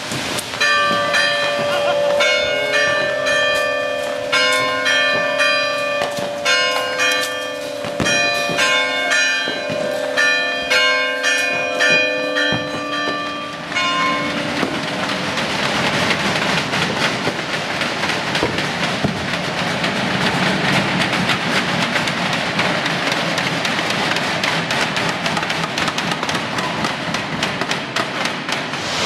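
Church bells ringing rapidly in several pitches for about the first half. They give way to a dense, continuous crackling hiss from the Easter rocket barrage.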